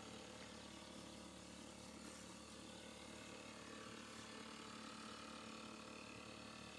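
Near silence: a faint, steady outdoor background with no distinct events.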